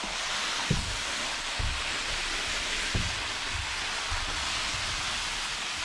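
A roll of synthetic roofing underlayment being unrolled over a plastic-covered roof: a steady hiss of the sheet peeling off the roll and sliding over the layer beneath, with a few dull thumps in the first three seconds.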